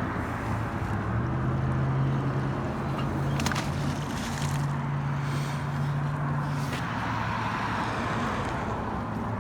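Road traffic passing close by: a steady rush of car engine and tyre noise, with a low engine hum that swells in the middle and two brief clicks.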